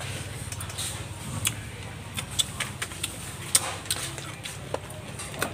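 Scattered small sharp clicks and clinks of cockle shells being pried open by hand during eating, over a low steady hum.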